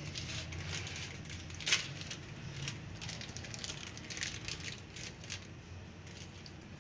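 Soft crackling and rustling with scattered small clicks from handling over the pizza, with one sharper click about two seconds in, over a faint steady low hum.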